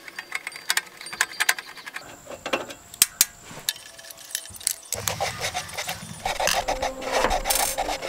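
Screwdriver backing small screws out of a network video recorder's sheet-metal case: a run of small clicks, scrapes and rubbing. From about halfway through there are busier knocks and rubbing as the metal housing is handled.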